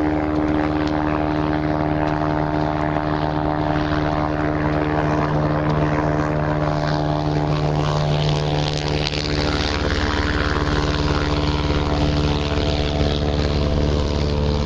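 Steady, loud drone of an engine-driven propeller, typical of an airboat running on the lake, holding one pitch with a slight shift about nine or ten seconds in.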